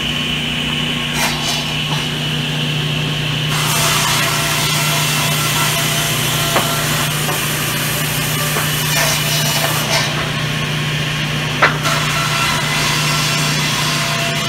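Circular saw ripping teak boards fed along a table, the motor humming steadily underneath. The cutting noise comes in about three and a half seconds in, eases briefly around ten seconds, then resumes, with a couple of sharp knocks along the way.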